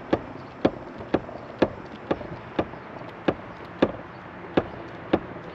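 Hand hydraulic crimper being pumped, a sharp click with each stroke of the handle, about two a second, as its 2/0 dies close down on a battery cable lug.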